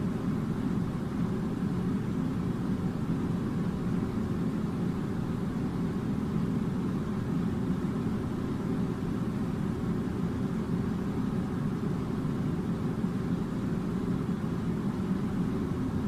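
Steady low machinery drone, an even rumbling hum with no breaks or changes.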